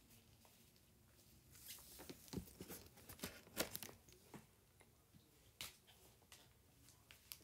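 Gloved hands handling a plastic tie-dye spinner kit: faint crinkling and clicking, with a cluster of sharper crackles from about two to four and a half seconds in and a single click near the end.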